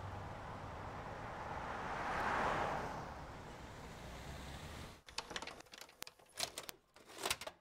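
Outdoor background noise with a vehicle passing, swelling and fading about two seconds in; then, after a sudden cut about five seconds in, a run of mechanical clicks and clunks from a VHS video recorder ejecting a tape.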